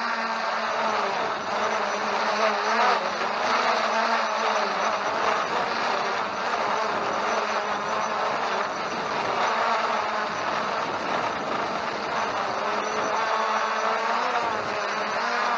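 Holystone HS700D quadcopter's propellers buzzing steadily in flight, the pitch wavering up and down as the motors keep correcting.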